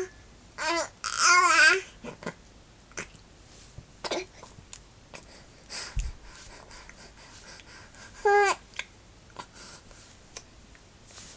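Baby babbling in short high-pitched, wavering bursts in the first two seconds and again near the end, with brief sharp catches in between that are the baby's hiccups.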